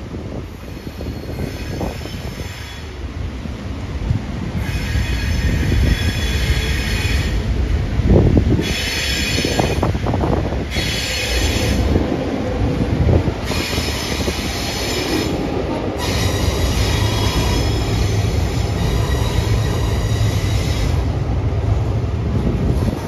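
Two 42 class diesel locomotives, with EMD V16 two-stroke engines, rumble slowly across a steel girder bridge while shunting. High-pitched wheel squeal comes and goes in spells of one to several seconds from about five seconds in.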